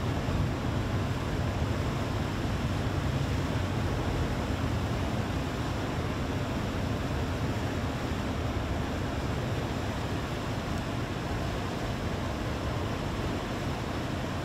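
Steady low rumble of a ferry under way, with a constant rush of wind and water noise over it.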